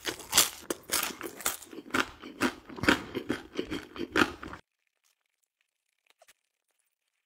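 Close-miked crunchy chewing of a crisp pan-fried dumpling, with loud crunches about three times a second. The crunching cuts off abruptly about four and a half seconds in, leaving near silence with a couple of faint ticks.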